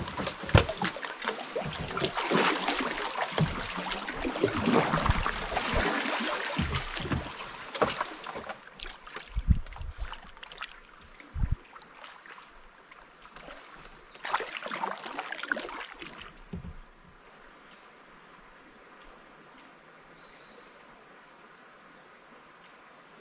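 Canoe paddle strokes splashing and dripping in the water for the first several seconds and again briefly about 14 seconds in, then the canoe gliding with no strokes. A steady high buzz of insects runs underneath.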